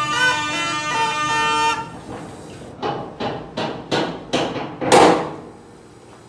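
Snake charmer's been (pungi), a gourd-mouthpiece reed pipe, playing a wavering melody over a steady drone, stopping about two seconds in. Then six short, sharp sounds in quick succession, the last one the loudest.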